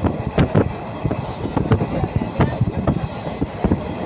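Train moving through a railway station, its wheels clattering and knocking irregularly over the rails.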